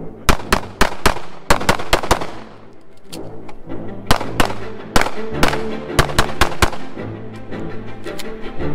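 Rapid 9mm pistol fire from a CZ Shadow 2 in two quick strings of shots, with a pause of about a second and a half between them, over background music.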